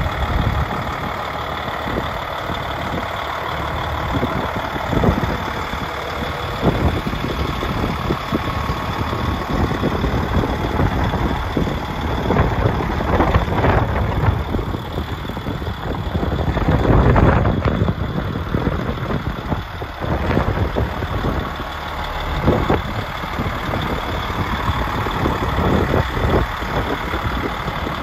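Diesel truck engine idling steadily, the DAF XF105's Paccar MX straight-six, with gusts of wind buffeting the microphone in irregular surges.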